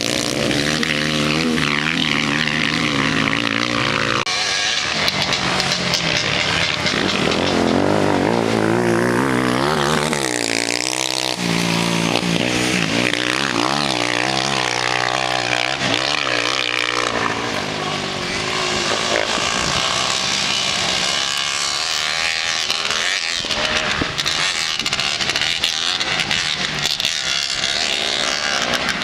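Engines of 250-class racing quad bikes (ATVs) revving hard and easing off as they race over a dirt track, their notes rising and falling again and again with several machines overlapping.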